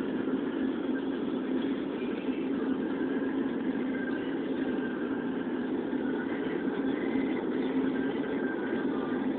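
Steady engine and road noise heard from inside a car's cabin while it drives.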